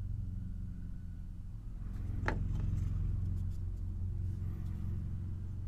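Steady low engine-like hum that grows louder about two seconds in and eases near the end, with a single sharp click about two seconds in.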